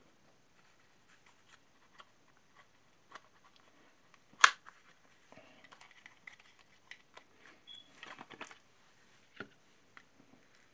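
Small cardboard cosmetics box being handled and opened: scattered light clicks and rustles of the paperboard, with one sharp tap about four and a half seconds in.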